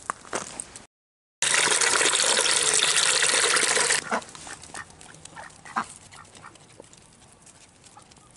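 Water gushing into a plastic bucket for about two and a half seconds, cutting off abruptly, followed by faint scattered clicks.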